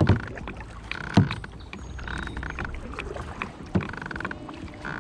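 Kayak on the water with three dull knocks against its hull, near the start, about a second in and a little before the end, typical of a paddle or gear bumping the kayak.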